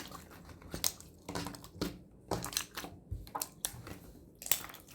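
Yellow clear slime being squished and kneaded by hand, giving an irregular string of short wet clicks and pops, two or three a second.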